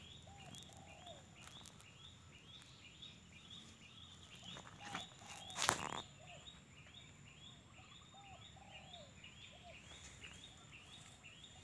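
Outdoor animal calls: a high chirp repeating about three times a second under a lower rising-and-falling call that comes every second or so. Maize leaves rustle briefly against the microphone about halfway through.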